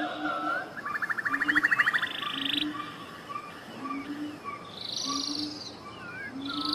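Tropical forest ambience: frogs calling, with short low croaks repeating about once a second and a fast pulsed trill about a second in, among birds whistling short notes that slide up and down.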